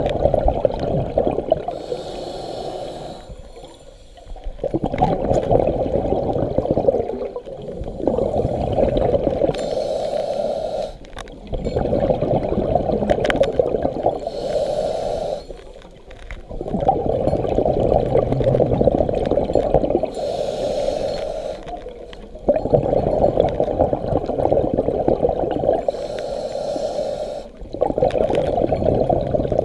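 Scuba diver breathing through a regulator: a short hissing inhale, then a longer rush of exhaled bubbles, repeating about every six seconds.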